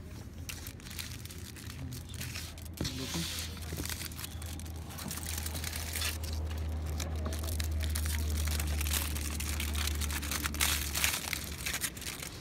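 Aluminium foil crinkling and crackling as it is unwrapped by hand, with a steady low hum underneath through much of the middle.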